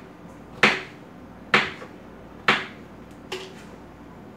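Kitchen knife chopping through potatoes onto a cutting board: four sharp chops a little under a second apart, the last one lighter.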